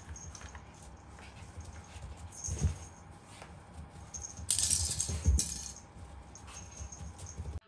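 A plastic Pop-up Pirate toy barrel is being pushed and knocked over on carpet by an otter. Its plastic swords rattle, with a few dull knocks and a longer burst of rattling about four and a half seconds in.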